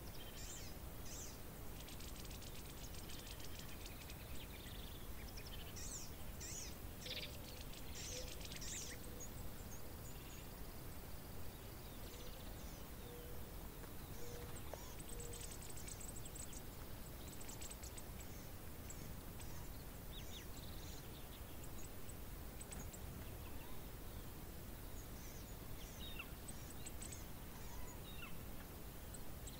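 Faint outdoor ambience: a steady low background rumble with scattered small-bird chirps and quick high trills, coming in clusters in the first third, around the middle and near the end.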